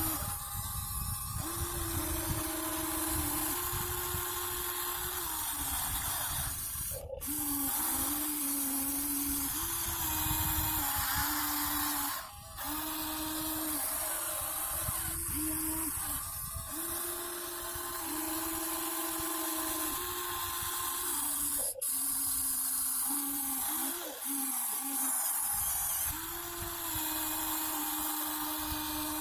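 Small electric gear motors of a Huina 1593 RC excavator whining as it works. The pitch steps up and down as different motors start, stop and take load, with three short breaks in the sound.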